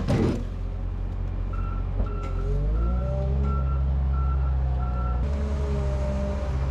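A heavy machine's engine running, rising in pitch about two and a half seconds in, while a backup alarm beeps steadily and stops about five seconds in.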